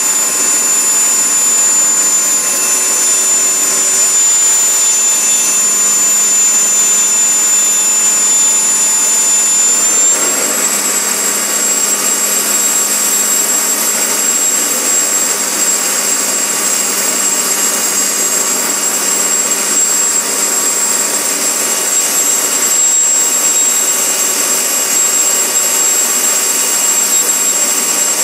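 Mosquito XET ultralight helicopter's small turbine engine running with a steady high whine over a rushing noise; the whine steps up slightly in pitch about ten seconds in.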